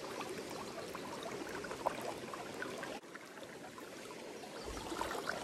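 Flowing river water, a steady rush with a few faint ticks.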